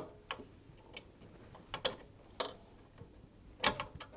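A few small, scattered clicks and taps of plastic-sleeved spade connectors being worked off a washing machine heater's terminals and the wires being handled.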